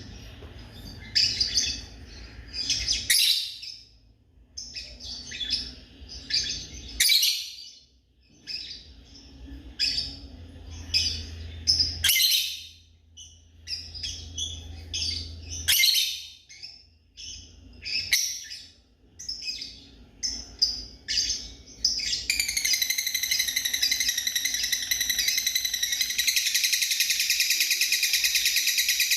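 Lovebirds chirping in short, high-pitched bursts, giving way about three-quarters of the way through to a continuous, rapid high-pitched chatter.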